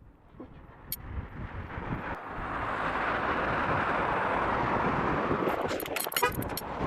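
A car passing by, its tyre and engine noise swelling and fading away over a few seconds. A quick run of clicks comes near the end.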